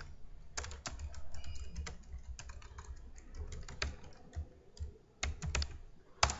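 Typing on a computer keyboard: irregular keystrokes at an uneven pace, with a louder stroke near the end.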